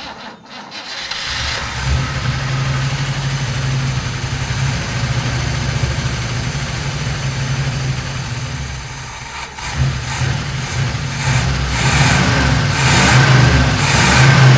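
1957 GMC 100 pickup's engine running on fuel poured into the carburetor, with the throttle worked by hand at the carburetor. It nearly stumbles about two-thirds of the way through, then picks up and runs louder near the end. It sounds rough and worn, which the owner calls "whooped" and "definitely beat", with blow-by coming out of the valve cover vent.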